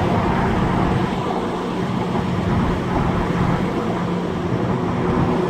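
Audi 2.7T twin-turbo V6 car driving with a steady engine note over road noise, no revving or boost change.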